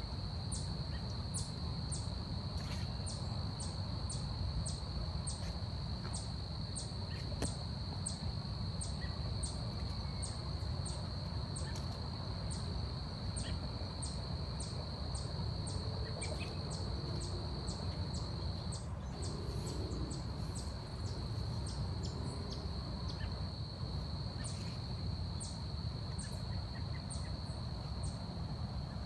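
Forest insect chorus: one insect keeps up a steady high-pitched drone while another gives sharp, regular high chirps about twice a second, thinning out midway, over a low steady rumble. A few faint low calls come through midway.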